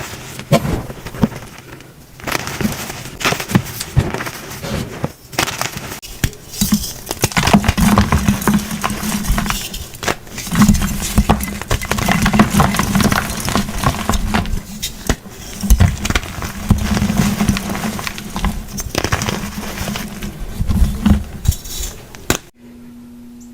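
Blocks of gym chalk being crushed and crumbled: dense, crisp crunching and crackling with a few brief pauses. Near the end it cuts off suddenly to a faint steady hum.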